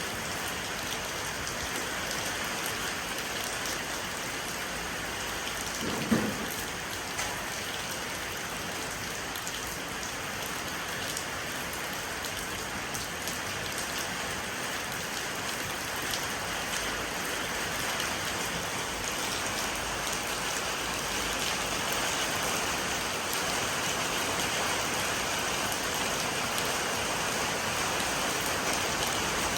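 Steady rain falling on a porch, with one louder thud about six seconds in; the rain grows slightly louder toward the end.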